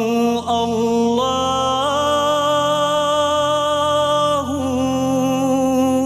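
Unaccompanied devotional naat singing: a voice holding long, slowly ornamented notes over a steady low drone, with a long sustained note through the middle.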